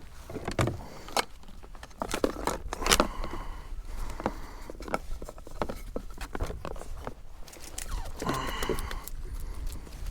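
Irregular clicks, knocks, rattles and scrapes of fishing gear and a caught fish being handled, with a brief pitched squeak or grunt about eight seconds in.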